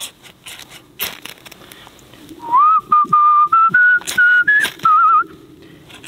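A man whistling a tune, beginning about two and a half seconds in, in short held notes that step upward in pitch, with a warbling note near the end. Before it, a few sharp scrapes of a ferro rod being struck against its steel striker.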